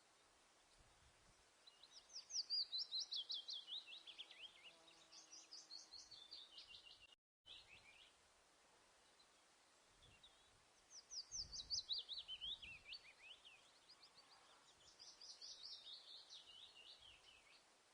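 A songbird singing two long phrases, each a rapid run of high chirps that slides downward in pitch, with a pause of a few seconds between them. The sound cuts out for a moment near the end of the first phrase.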